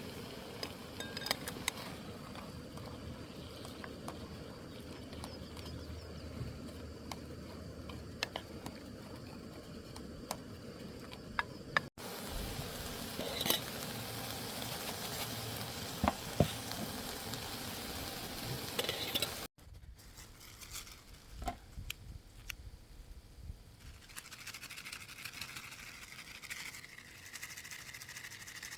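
Food sizzling and frying in a pan, with scattered clicks and scrapes of a utensil stirring it. The run is cut off abruptly twice.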